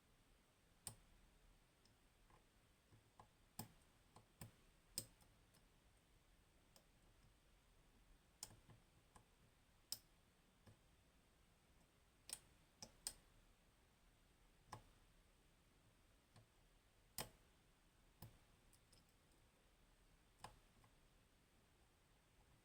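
Small, sharp clicks from picking a Goal Grand V high-pin-count pin-tumbler lock. The pick works the pins and the pins set against the core, at irregular intervals, sometimes two or three close together and sometimes seconds apart.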